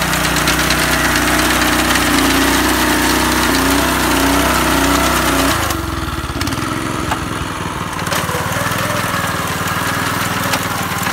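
Small engine of a walk-behind paddy reaper running steadily, then dropping to a slower, lower idle about halfway through.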